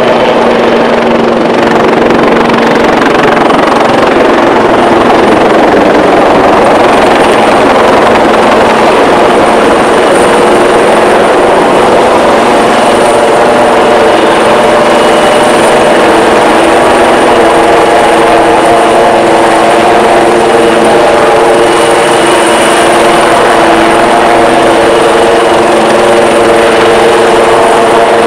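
AgustaWestland AW159 Wildcat helicopter flying low and hovering: steady rotor and twin turboshaft engine noise with a faint high whine, and a hum of several tones that grows stronger about halfway through.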